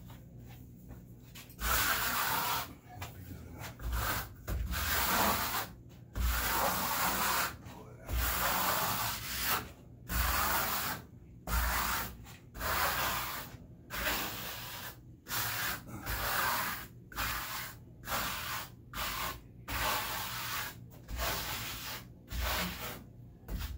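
A trowel scraping wet microcement base coat across mesh on a wall, pressing the mesh into the coat. Repeated strokes, each about a second long with short pauses between, begin about two seconds in.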